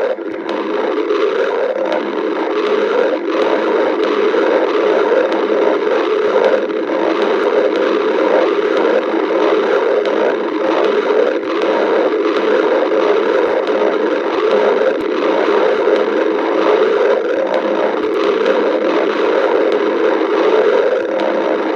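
A person's stomach growling: a loud, continuous rumble that wavers in strength but never breaks.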